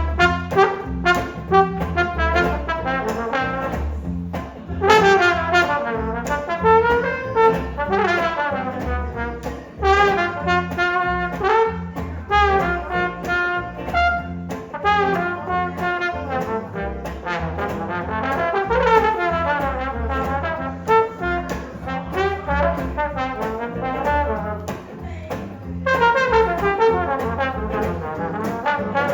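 Trombone solo in a jazz band, phrases gliding up and down in pitch over the band's steady rhythmic backing.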